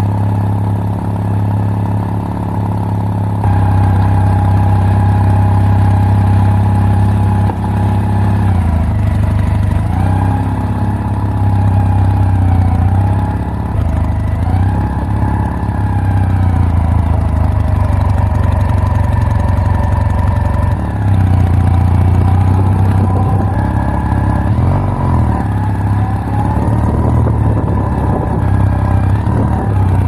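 Kawasaki W800 Cafe's air-cooled parallel-twin engine running: steady at first, then pulling away about three and a half seconds in and riding on, its pitch rising and falling with the throttle and gear changes.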